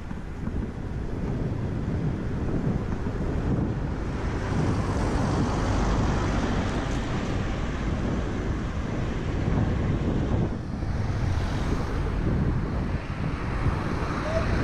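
Steady wind rush and low rumble on a cycling GoPro's microphone while riding along a road, with traffic noise; a vehicle comes alongside near the end.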